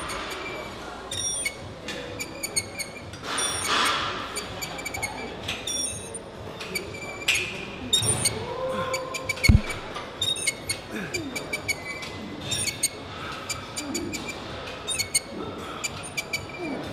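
Metal cable attachment on a gym cable pulley clinking and rattling with each pullover rep, a noisy handle that the lifter calls the worst noise ever. There is one heavy thump about nine and a half seconds in, and gym music plays underneath.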